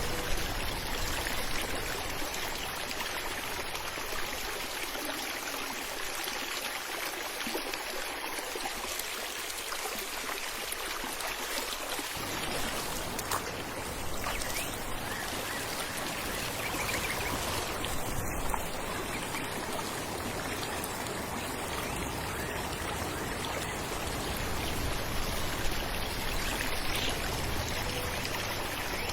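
Falling water rushing and splashing steadily, like a stream spilling over rocks; a deeper low rumble fills in about twelve seconds in.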